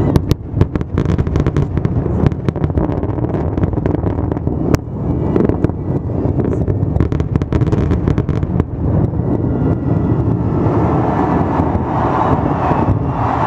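Fireworks going off: rapid bangs and crackles over a steady low rumble, thinning out after about nine seconds.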